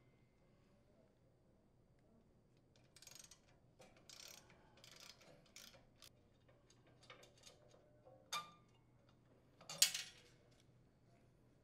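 Hand tools on the bolts of a Cub Cadet chipper shredder's impeller blade: a socket ratchet clicking in short runs, with light metal clinks of tools and hardware. A louder metal clank near the end is the loudest sound.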